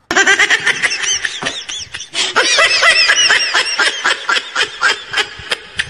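High-pitched laughter in quick repeated peals, starting abruptly and fading toward the end: a comedy laughter sound effect.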